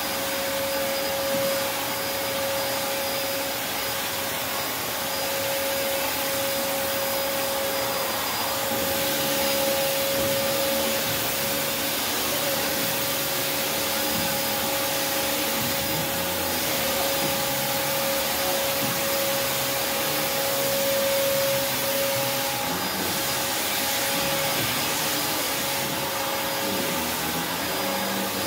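Prolux X8 Elite backpack vacuum running steadily: a motor whine over the rush of air.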